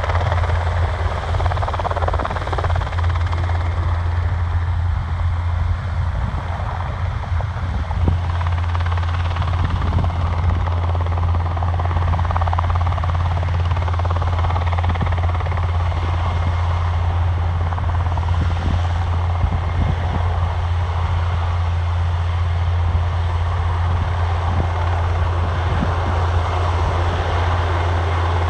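Twin-engine Eurocopter AS-532U2 Cougar Mk.II military helicopter hovering low over an underslung load, its main rotor beating steadily and deeply over a dense, even engine and rotor noise.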